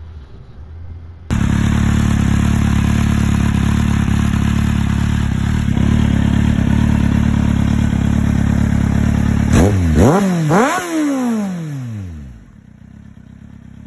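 Kawasaki Z750's 748 cc inline-four idling loudly through a Shark Street GP aftermarket carbon silencer, then blipped twice in quick succession, each rev rising sharply and the second falling back slowly to idle.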